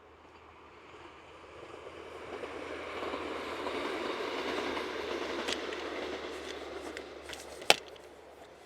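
A vehicle passing by: its rushing noise swells for about three seconds, holds, then fades away, with one sharp click near the end.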